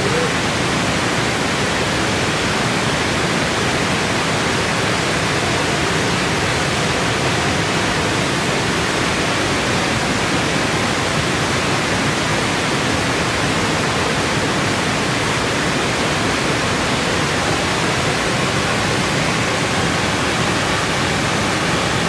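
Water rushing over a small waterfall, a steady, even rush.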